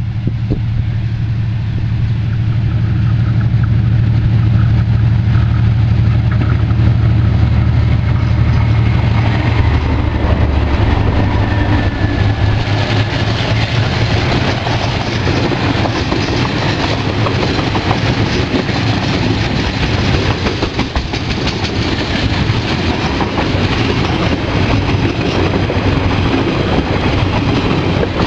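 Two diesel-electric freight locomotives, a DFT and a DBR class, pulling a train past. Their engines' low steady drone dominates until they go by about ten to eleven seconds in. After that come the wagons rolling past with the clickety-clack of wheels over the rail joints.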